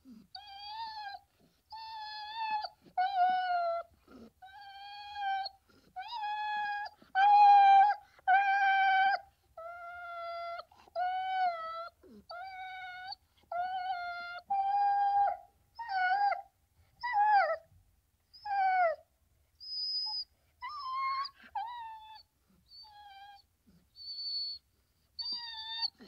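A dog whining and whimpering: a long run of high-pitched, drawn-out cries with short gaps between them, several sliding downward in pitch, the loudest a few seconds in.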